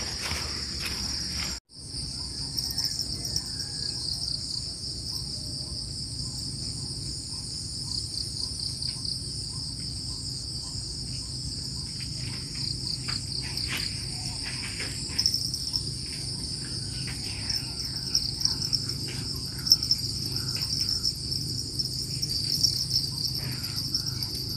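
Steady chorus of crickets and other insects, an even high-pitched trill with faint scattered ticks; the sound cuts out for a moment about two seconds in.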